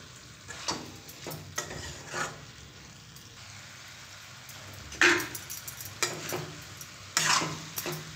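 Spatula scraping and stirring diced vegetables in a steel kadhai, in irregular strokes, with a quieter stretch in the middle and louder scrapes from about five seconds in. A light sizzle of the vegetables cooking in the pan runs underneath.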